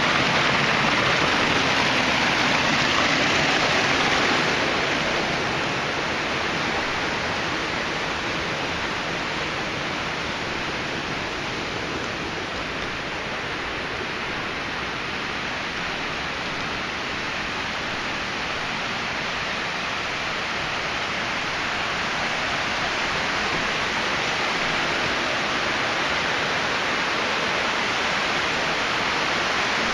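Small waterfall of storm run-off water rushing and splashing steadily, a little louder for the first few seconds.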